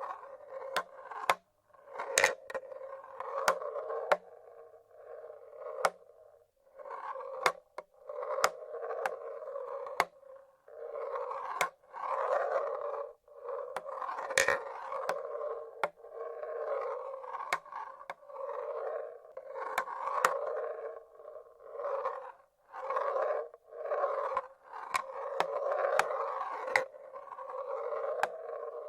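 Glass marbles rolling along the tracks of a wooden marble-run machine. Rolling rumbles of a second or two come one after another, broken again and again by sharp clacks as marbles drop and knock against the wood and each other.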